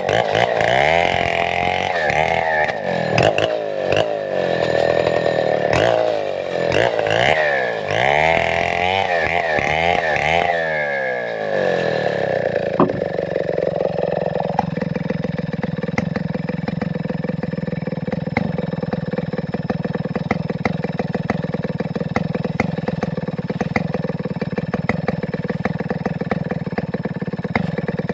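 Large two-stroke chainsaw of the Stihl 070 type running, its engine revving up and down over and over for the first ten seconds or so, then winding down and settling to a steady idle for the second half.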